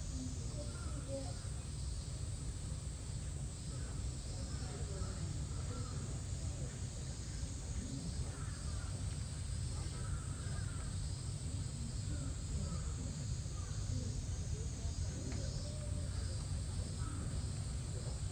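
Outdoor ambience: a steady low rumble under faint, distant voices and scattered bird calls, with a thin steady high hiss.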